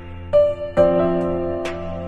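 Background music played on a keyboard: a note struck early, then a chord just under a second in, left ringing and slowly fading.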